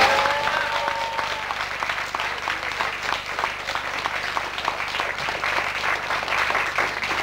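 Audience applauding. A brief tonal call sounds as the applause breaks out, which is the loudest moment, and then the clapping carries on evenly.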